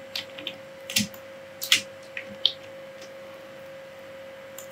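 Several short computer mouse and keyboard clicks, mostly in the first half, over a steady faint hum.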